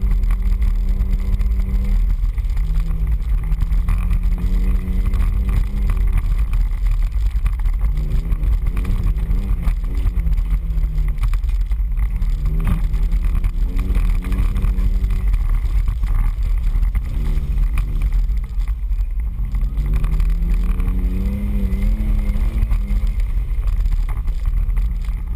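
Four-wheel-drive vehicle's engine revving up and down in repeated swells as it crawls over a rough dirt trail, over a constant heavy low rumble, heard from a camera mounted on the hood.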